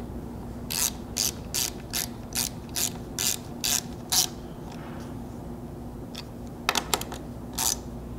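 Hand socket ratchet clicking as nuts are tightened down: about nine even strokes at a little over two a second, a pause, then a quick cluster of clicks and one more near the end.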